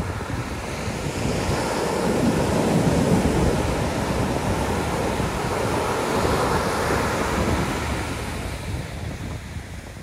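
Pacific Ocean surf breaking on a sandy beach and washing up the shore, swelling twice, about two seconds in and again around seven seconds, then easing off near the end.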